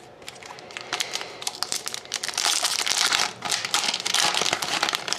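Foil trading-card pack wrapper being torn open and crinkled: a few light crackles at first, then dense crinkling in the second half.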